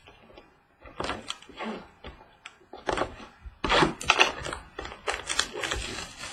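Hands opening a trading card box and handling the cards inside: an irregular run of crinkles, taps and snaps of cardboard and card stock.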